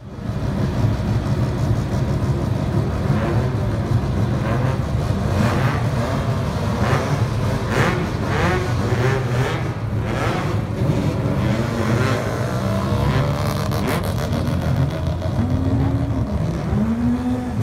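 Rotary-engined Mazda race cars running loudly at idle, with a run of sharp throttle blips in the middle. Near the end the revs rise and fall a few times as the cars pull away.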